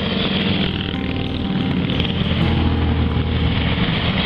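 Motorcycles riding past one after another, a vintage bike followed by a modern cruiser, their engines running at a steady pace.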